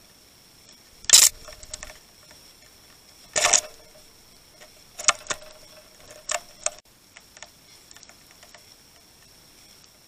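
House sparrows pecking and hopping at seed on a feeder board: irregular taps and knocks close to the microphone, in a few loud clusters with fainter ticks between.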